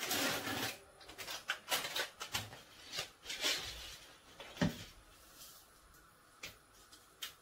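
Kitchen handling sounds: a plastic food bag rustling and crinkling as it is emptied and put down, then a jar being handled and opened, with light clicks and one dull knock a little under five seconds in.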